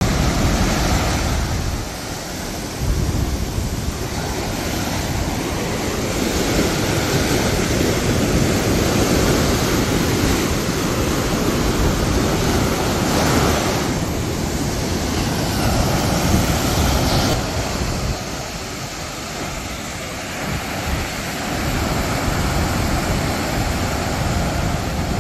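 Sea surf breaking and washing up a sandy beach: a continuous rush of foaming waves that swells and eases as each wave breaks and runs in, with wind rumbling on the microphone.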